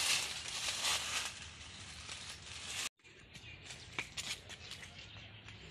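Dry fallen leaves rustling as a toddler stirs them, loudest in the first second or so. The sound cuts out suddenly about three seconds in and is followed by fainter noise with a few light ticks.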